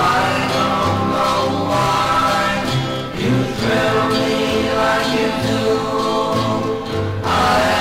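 1960 doo-wop record: a male vocal group singing held close harmonies over an orchestral backing, with a bass line moving underneath.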